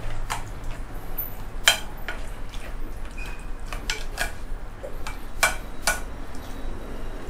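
Metal spoon scraping and clinking against a ceramic plate as a thick paste is stirred and spread. The clinks come at irregular intervals, the sharpest about a second and a half in.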